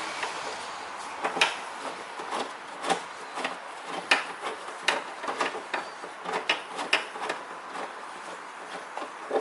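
Irregular light clicks and knocks, a dozen or more spread through, of hands and a tool working at a bolt and the lock parts inside a car door.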